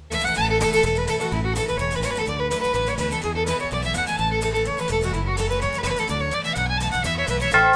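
Fast traditional fiddle tune with a steady bass accompaniment, starting abruptly.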